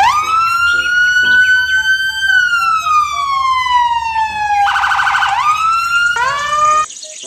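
Electronic police car siren. It wails in one long cycle, climbing and then sliding slowly down, breaks into a fast warble about five seconds in, then climbs again and cuts off near the end.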